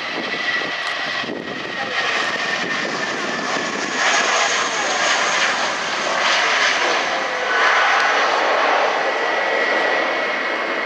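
Jet engines of a British Airways Airbus A320-family airliner at takeoff thrust: a steady rushing roar with a thin whine. It grows louder about four seconds in as the jet rotates and climbs away.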